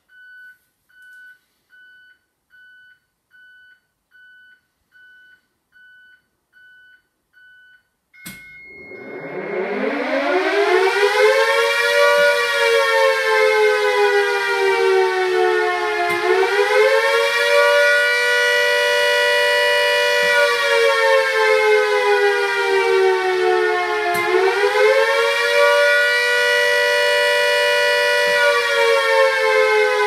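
About ten short, evenly spaced electronic beeps from the WB1400 carrier control point, then a click, and a Castle Castings air raid siren starts, winding up to full pitch over a few seconds. It then wails up and down, its pitch slowly sinking and rising again about every eight seconds: the rising-and-falling attack warning.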